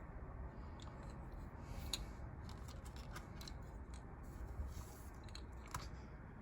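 Faint handling noises: scattered light clicks and taps over a low steady hum.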